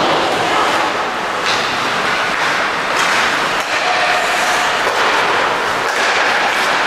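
Ice hockey game in a rink: a steady din with sharp knocks of sticks and puck against ice and boards, the clearest about one and a half and three seconds in.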